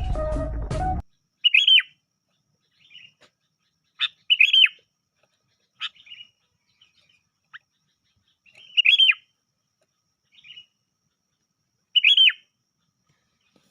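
Sooty-headed bulbul (kutilang) calls played as a lure call: short, loud, sweet call phrases every three to four seconds, with softer calls in between. A loud noisy burst fills the first second.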